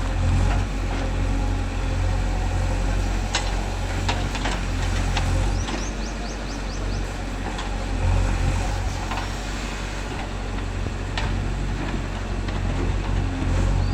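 Heavy diesel engines of a backhoe loader and a tractor running steadily at low pitch, with a few sharp knocks and a quick run of short squeaks about six seconds in.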